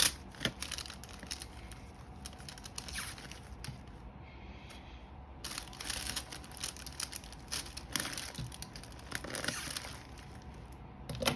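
Plastic wrapping crinkling and crackling as it is handled, in irregular clicks and rustles. It is thickest in the second half, with a sharp crack right at the start.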